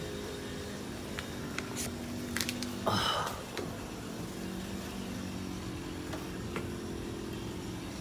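Clicks and knocks of handling at a drinking-water dispenser, with a short rush of water lasting about half a second, about three seconds in, over a steady low hum.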